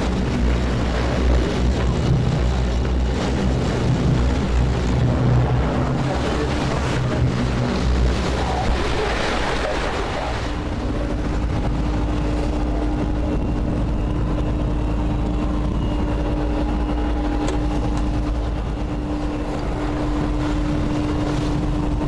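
All-weather lifeboat's engines running steadily under way, with wind and sea noise over them. About ten seconds in, the engine note changes and a steady higher hum comes in.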